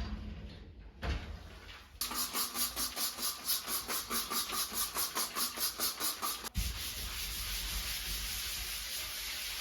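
Rhythmic scrubbing of a surface during bathroom cleaning, at about four strokes a second. It gives way to a steady rubbing hiss about two-thirds of the way through.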